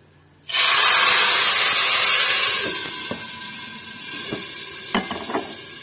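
Hot tempering oil (baghar) with whole red chillies, cumin and curry leaves poured into a pot of kadhi, setting off a loud sizzle that starts suddenly about half a second in and fades over the next few seconds. A few light clinks of cookware follow near the end.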